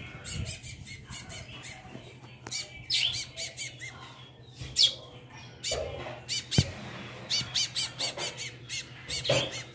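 Fledgling songbirds begging with short, high-pitched chirps while the female feeds them in a wire cage. The calls come in scattered bursts, with a quick run of them near the end, and there is one sharp tap about two-thirds of the way through.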